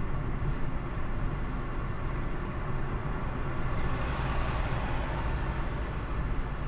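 Road and engine noise heard from inside a car driving at about 50 km/h: a steady low rumble with tyre hiss. A truck passing close alongside swells the hiss about four seconds in.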